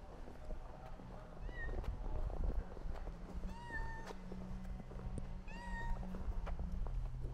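An animal calling three times, short calls about two seconds apart, each rising then falling in pitch.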